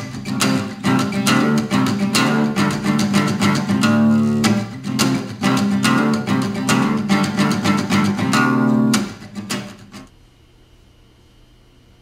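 Acoustic guitar music, strummed and plucked, which fades out about nine to ten seconds in, leaving only faint room tone.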